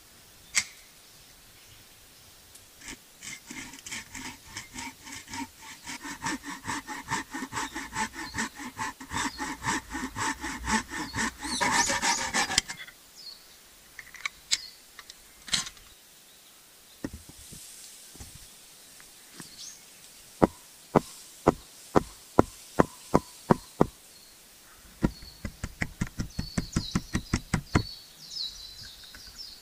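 Wood being sawn by hand with fast, even strokes that stop abruptly about halfway through. Later, a run of sharp knocks on wood about two a second, followed by a quicker run of knocks.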